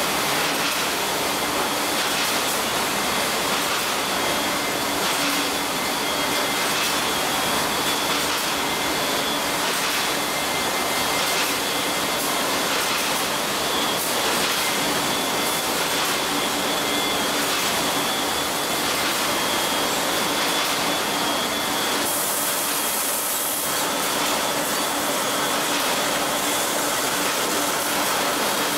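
Factory conveyor and packaging machinery for chocolate bars running: a steady rushing drone with faint steady hum tones in it.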